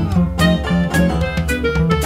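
Instrumental background music with a steady beat and plucked notes.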